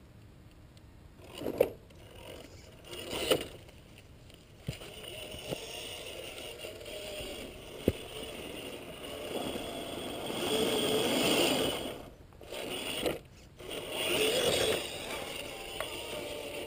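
RC scale crawler's Holmes Hobbies 27-turn brushed motor and geared drivetrain running in bursts as its tyres scrape and grind over sandstone, louder in stretches, with a few sharp knocks along the way.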